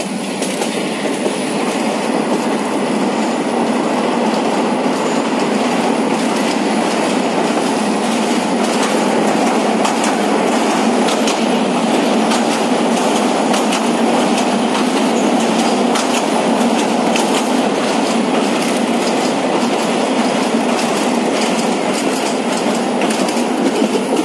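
Passenger train running at speed: a steady rumble of wheels on the rails, with quick clicks of the wheels over the rail joints growing frequent from about a third of the way in.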